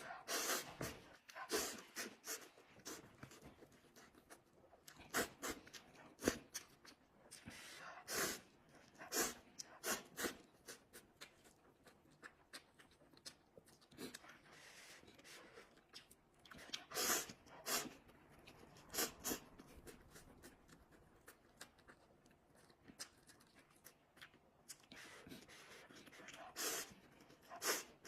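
Close-miked eating of instant noodles: wet chewing and mouth smacks, with many sharp clicks coming in irregular clusters.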